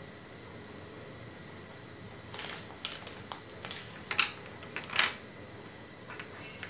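Quiet room tone, then from about two seconds in a run of six or seven short scrapes and rustles of objects being handled.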